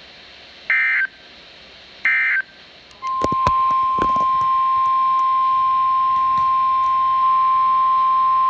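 Two short bursts of Emergency Alert System SAME digital data tones, a rapid warbling buzz, about a second apart. From about three seconds in, a steady NOAA Weather Radio 1050 Hz alert tone sounds, with a few crackles just after it begins.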